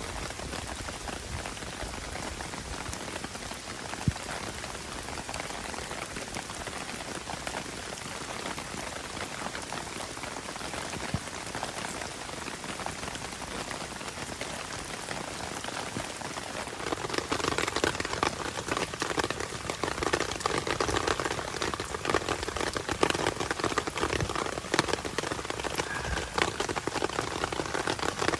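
Heavy rain falling on a tarp, a dense patter of drops that grows louder and heavier about seventeen seconds in.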